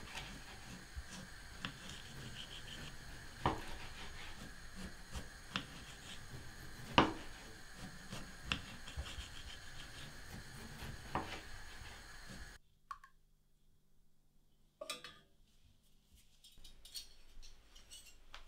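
Kitchen sounds of dishes and utensils being handled: scattered, irregular clinks and knocks over a steady room background, the loudest about seven seconds in. This cuts off suddenly about twelve and a half seconds in, leaving near quiet with a single knock around fifteen seconds and faint, regular ticking near the end.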